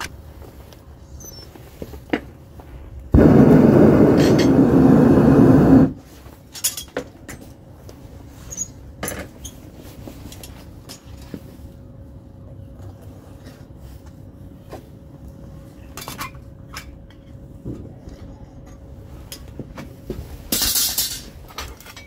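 Metal objects clinking and clattering in scattered knocks. About three seconds in, a loud rushing noise runs for about three seconds and cuts off suddenly, and a short hiss follows near the end.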